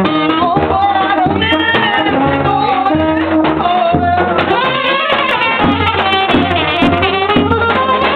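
Live band music with an alto saxophone played up close, joined by a trumpet, a man's singing voice and percussion.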